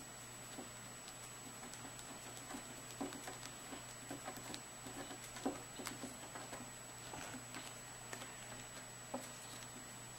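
A Persian kitten's paws and a plastic wand toy tapping and scratching on a woven table mat: light, irregular pattering, busiest in the middle, with one sharper tap a little past halfway. A low steady hum runs underneath.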